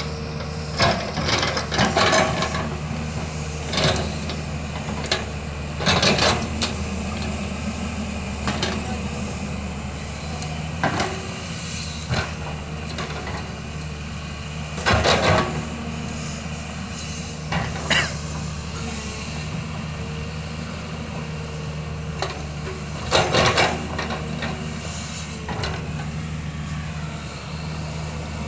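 Diesel engine of a heavy digging machine running steadily under load, with repeated short bursts of clattering and scraping as the bucket works earth and rock.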